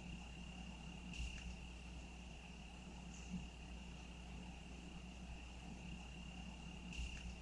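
Faint, continuous cricket chirping, a steady unbroken high trill. Two brief sharp sounds, one about a second in and one near the end, stand out over it.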